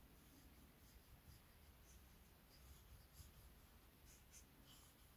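Very faint scratching with light ticks: a hobby knife blade scoring around a thin wooden dowel as the dowel is rolled under it, cutting part way through to mark where the mast's top is to be squared.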